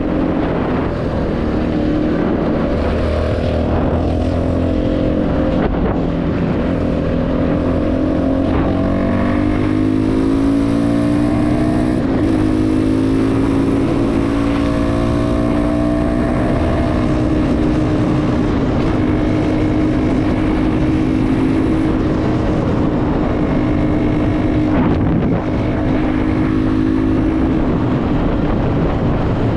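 CFMoto 250NK motorcycle's single-cylinder engine running through a full Akrapovič exhaust while being ridden. The engine note climbs as it accelerates about a third of the way in, then holds steady at cruising speed over a low wind rumble.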